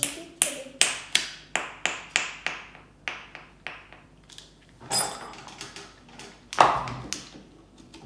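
Plastic fidget toys being handled, with a run of sharp clicks at about three a second that fade. Later come a brief rustling burst and one louder knock.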